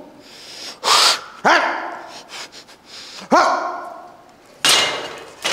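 A man's short strained grunts and sharp hissing breaths as he works through a set of cable biceps curls near failure. There are two grunts about two seconds apart between hissing breaths, and a longer, louder breath near the end.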